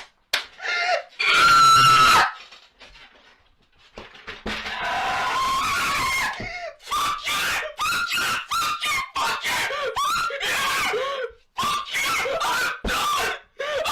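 High-pitched screaming: a loud scream about two seconds in, a short quiet gap, then a long run of quick, wordless cries.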